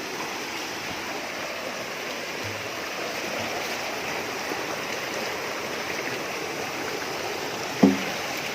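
Waterfall water rushing steadily over rocks, an even hiss of falling water. A brief loud pitched sound cuts in near the end.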